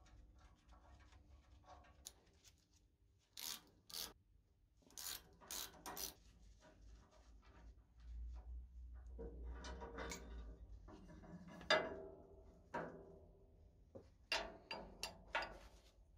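Steel parts of an old rusty Morso mitre guillotine being taken apart by hand with a spanner: nut and bracket handling gives irregular metallic clicks and clinks, with a longer stretch of scraping and rubbing in the middle.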